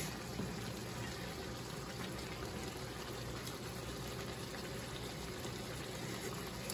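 Tomato sauce with veal and peppers simmering in a pan on the stove: a steady soft bubbling hiss with a few faint pops.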